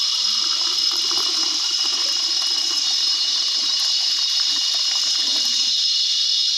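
Hot coffee poured in a stream from an aluminium kettle into a cup, a steady liquid gushing. Behind it, forest insects drone steadily at a high pitch.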